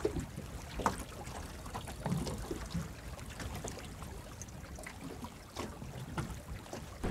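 Water lapping and trickling against the hull of a small boat, with scattered light clicks and knocks.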